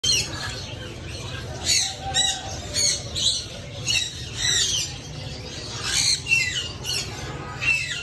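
Caged parrots squawking: a string of short, shrill calls, many falling in pitch, at irregular intervals of roughly half a second to a second, over a steady low hum.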